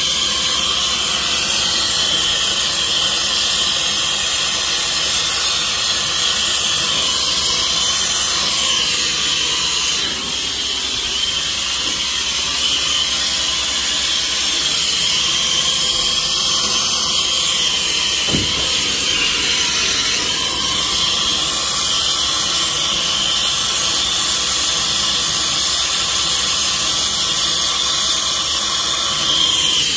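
Steady, loud hiss of gas while a copper refrigerant line is brazed onto a thermostatic expansion valve: the brazing torch flame burning, with nitrogen flowing through the pipe as a purge.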